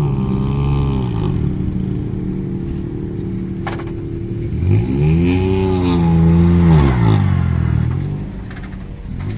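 Rally car engine revving up, holding and dropping back, loudest about five to seven seconds in, with another engine note falling away at the start. A single sharp click near the middle.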